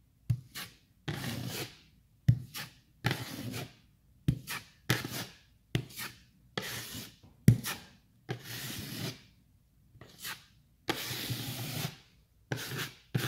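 A metal drywall taping knife scrapes joint compound across damaged drywall in repeated strokes, about one a second, with a few strokes starting with a sharp tap of the blade.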